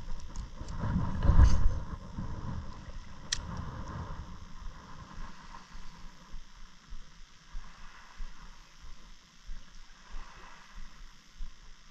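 Water sloshing and outdoor noise on a GoPro's small microphone, with a heavy low rumble about a second in and a single sharp click a couple of seconds later.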